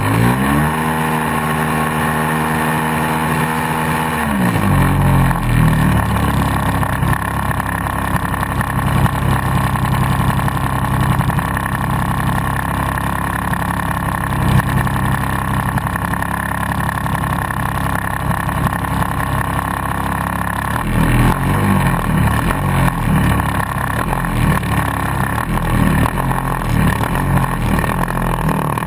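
Engine of a large radio-controlled model Piper Cub tow plane running on the ground, heard close up. It revs up to a steady pitch in the first second, holds there, and drops back about four seconds in. It then runs steadily, and from about twenty seconds in its speed wavers up and down.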